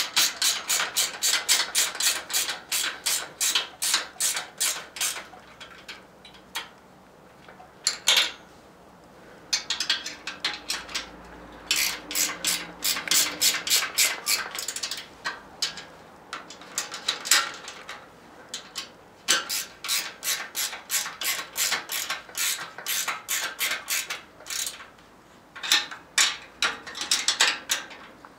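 Ratchet wrench clicking in runs of a few seconds, about four or five clicks a second, with short pauses between, as the bolts of a motorized bicycle's chain tensioner are tightened.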